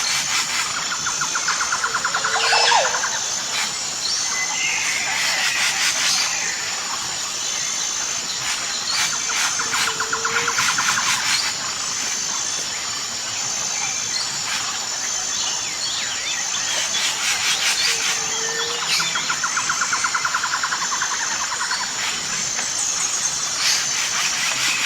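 Tropical jungle ambience: a steady, high, pulsing insect drone under chirping bird calls and rapid trills that come back about every eight seconds.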